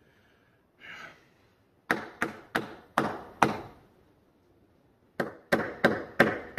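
Sharp knocks in two runs of five, about three a second with a pause between runs: the spine of a Cold Steel Finn Wolf folding knife whacked against something hard to test its backlock, which holds without folding.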